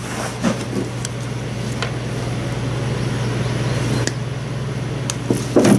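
Steady low machine hum in a workshop, with a few faint clicks as needle-nose pliers trim a plastic chainsaw oil tube.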